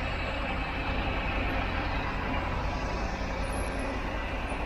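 A delivery van's engine running close by with a steady low rumble.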